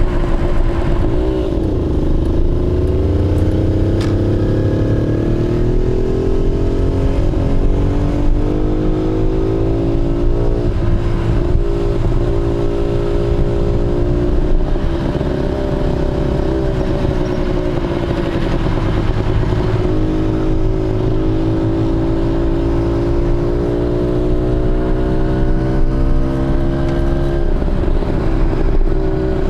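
Rex TT 150cc motorcycle engine running on the road. Its pitch climbs slowly as it gathers speed, levels off, and drops back between runs, several times over; the note falls away sharply near the end.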